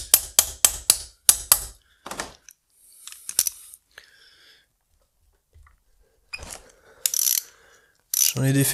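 Hand ratchet wrench with a 12 mm socket clicking rapidly, about four clicks a second, as it undoes a bolt on a Mazda MX-5 differential. The run of clicks lasts a couple of seconds, then gives way to scattered softer clicks and tool handling.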